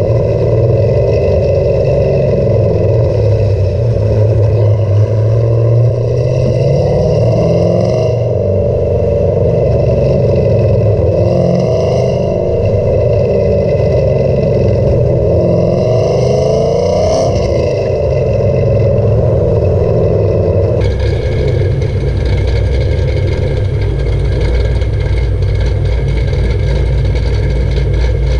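Cammed Camaro SS V8 running through an MBRP exhaust, heard at the tail of the car: a steady cruising drone with rushing air, then about 21 seconds in the note drops to a low, steady idle as the car stops.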